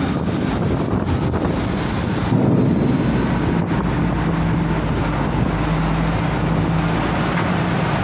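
Heavy diesel truck engine running steadily, a continuous low rumble with a steady low hum that becomes clearer about halfway through.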